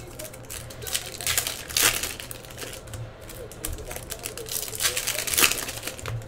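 Foil trading-card pack wrappers crinkling as they are handled and opened, in irregular bursts, with the loudest crinkles about two seconds in and again near the end.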